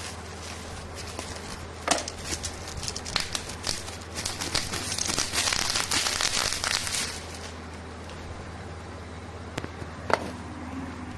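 Packaging crinkling and crackling as it is handled while a remote control is unboxed, heaviest in the middle stretch, followed by a single sharp click near the end.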